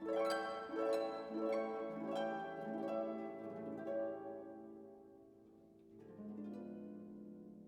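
Background music: plucked notes, harp-like, ringing and decaying in a gentle melody that thins out about halfway through and picks up again softly near the end.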